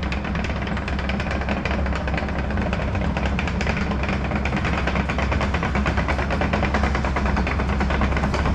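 Diesel engine of a tracked excavator running steadily, with a constant low hum and a fast, even rattle.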